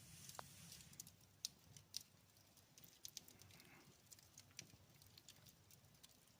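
Faint wood fire in a fireplace crackling, with scattered small, irregular pops and snaps as the flames pick back up on slightly damp firewood.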